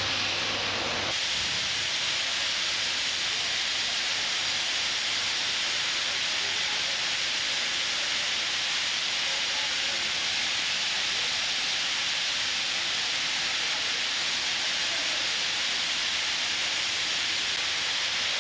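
Ring-system granite cutting machine cutting stone, a steady high rushing noise with no rhythm. About a second in, a low hum drops away and the noise continues unchanged.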